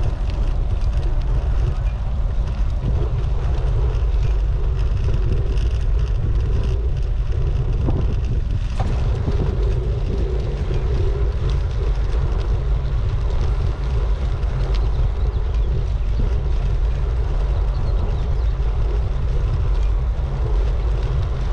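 Steady wind rushing and buffeting over the microphone of a GoPro carried on a moving bicycle, a low rumble with no break.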